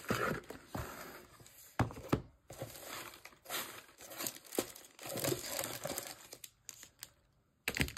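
Crinkle-cut kraft paper filler rustling and crinkling as items are pulled out of a cardboard shipping box, with a few sharp taps as boxes are handled and set down on a table.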